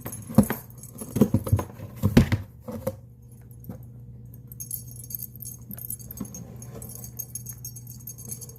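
A few sharp knocks and bumps in the first three seconds, then a steady low hum with faint, rapid jingling like small bells or keys.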